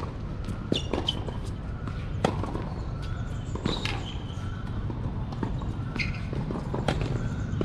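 Tennis rally on a hard court: about five sharp cracks of racket strings hitting the ball, roughly a second and a half apart.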